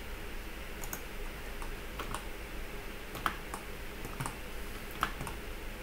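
Computer keyboard and mouse clicking as hotkeys and mouse buttons are pressed: about ten irregular clicks, some in quick pairs. The sharpest come a little past three seconds and about five seconds in.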